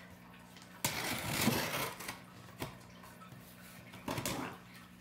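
Scissor blade drawn along the packing tape on a cardboard box, slitting it open: a scraping tear that starts suddenly about a second in and lasts about a second, a small click, then a shorter scrape near the end.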